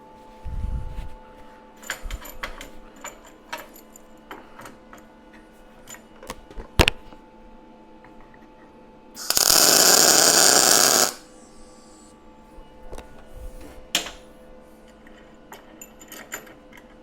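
Light clicks and clanks of steel parts and a clamp being handled, then a MIG welder's arc crackling steadily for about two seconds as a tack weld is laid on the steel plates.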